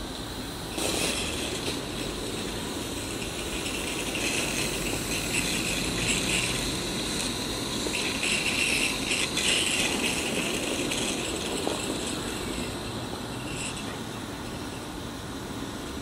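16mm-scale model Hunslet locomotives pushing a snow plough through deep snow. A hiss and a mechanical rattle swell and fade in irregular bursts as they push.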